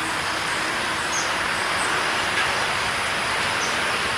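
Steady outdoor rushing noise, with two faint, brief high bird chirps, one about a second in and one near the end.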